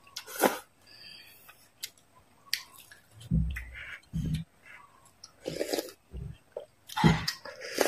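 Close-miked eating sounds: wet chewing of noodles with scattered mouth clicks, a short slurp about half a second in, and a louder slurp of soup from a wooden spoon near the end.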